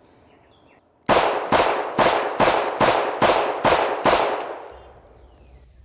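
Armscor AL22M .22 Magnum revolver fired rapidly double action: eight shots about half a second apart, starting about a second in, each trailing off in echo.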